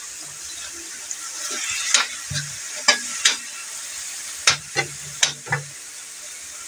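Pork, tomato and onion sizzling in a metal wok with freshly added soy sauce, while a metal spatula scrapes and knocks against the pan. The steady sizzle runs throughout, and there are about seven sharp strokes, most of them between two and six seconds in.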